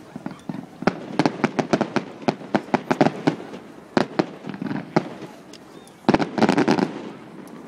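Display fireworks going off: a rapid string of sharp reports from about a second in, then a sudden, dense burst of crackling near the end.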